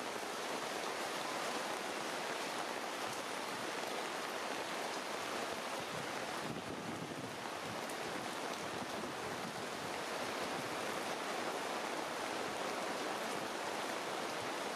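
Steady rain falling on tree foliage, an even hiss with no breaks.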